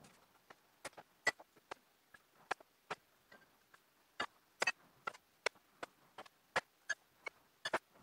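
Glass bottles clinking and knocking against each other as they are handled: sharp, irregular clicks, about two or three a second, some louder than others.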